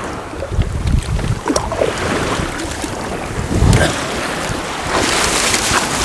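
Wind buffeting the microphone in gusts, with sea water washing and splashing around a fishing kayak. The hiss of the water grows louder near the end.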